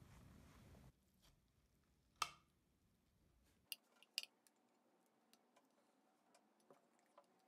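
A knife and spatula clinking and tapping against a ceramic baking dish as a baked cauliflower is cut and served: a sharp ringing clink about two seconds in, two more clicks around four seconds, then faint scattered ticks.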